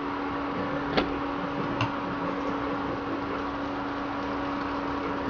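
Induction cooktop running while an empty kadhai preheats on it: a steady hum with a constant low tone, and a light click about a second in.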